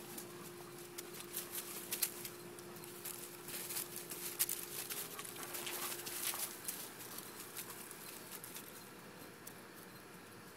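Ten-week-old Doberman Pinscher puppies at play: scattered scuffles and clicks of paws and bodies, thinning out after about seven seconds.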